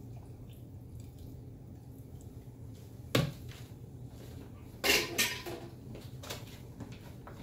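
Empty plastic mixing bowl handled and set down in a stainless steel sink: a sharp knock about three seconds in, then a louder clatter of a few quick knocks about five seconds in, followed by light clicks.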